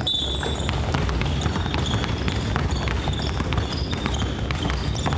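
Quick, irregular taps and thuds on a wooden gym floor: sneakered feet stepping through an agility ladder and basketballs bouncing, over a steady low rumble of a busy gym hall.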